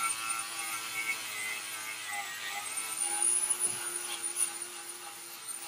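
Angle grinder grinding paint off a steel Jeep frame to bare metal for welding, running steadily with small shifts in its whine as it is worked against the metal.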